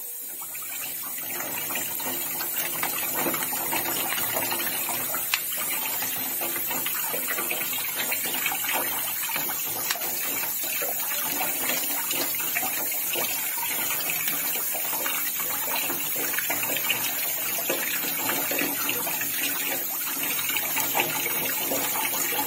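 Water running from a tap over hands scrubbing fresh ginger rhizomes in a sink, a steady splashing that builds over the first couple of seconds and then holds.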